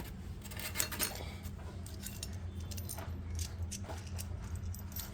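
Light metallic clicks and clinks of small hardware (bolts, washers and nuts) being handled, over a steady low hum.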